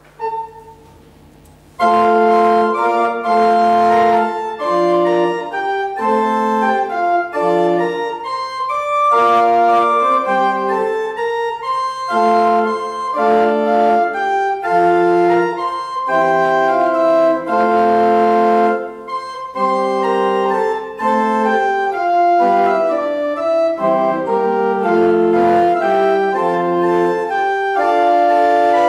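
Church pipe organ playing a hymn in slow, sustained chords with a moving melody line. It comes in fully about two seconds in.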